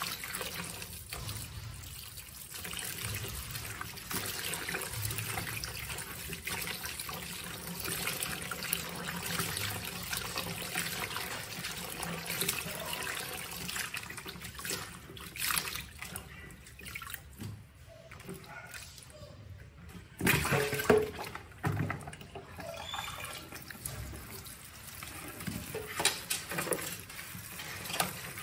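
Tap water running into a plastic basin of broccoli while hands swish and rub the florets, with irregular splashing; the splashing is loudest for a moment about two-thirds of the way through.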